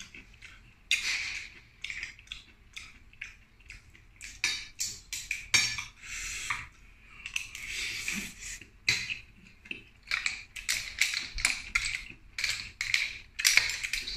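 Close-up mukbang eating sounds: chewing of shellfish and shrimp with many quick wet lip smacks and sucking clicks. A metal ladle clinks in the enamel wok near the end.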